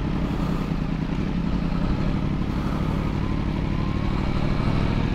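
Motorcycle engine running steadily while riding, heard through an even rush of wind and road noise.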